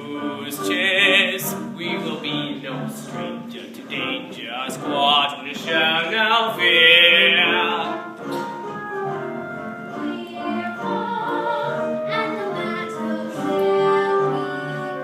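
Musical-theatre song: voices singing with vibrato over instrumental accompaniment, with stretches where several voices sing together.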